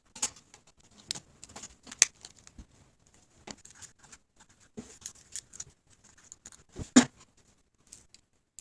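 Irregular small clicks, taps and rustles of hands handling the phone's small parts and tools during the charging-port repair, with two sharper taps about two seconds in and near seven seconds.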